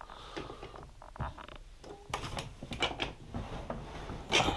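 Light plastic clicks and knocks from a Ridgid rolling toolbox being handled, a few scattered through, the loudest near the end.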